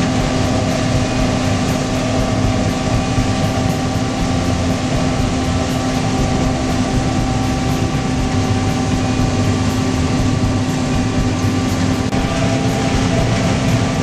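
John Deere combine running steadily while harvesting corn, heard from inside the cab: a constant machine drone with a steady hum.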